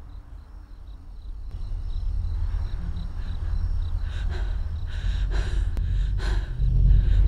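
A low rumbling drone that swells louder, with faint cricket chirps at first. From about four seconds in come a string of short, heavy breaths and gasps from a frightened woman.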